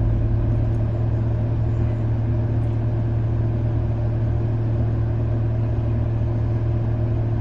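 A stopped vehicle's engine idling steadily, a constant low hum with no revving.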